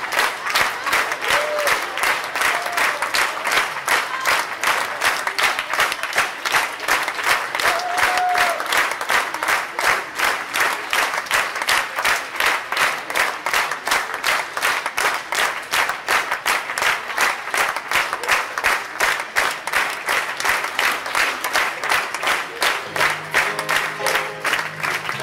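Audience clapping together in a steady rhythm. Near the end, low instrumental notes start playing underneath.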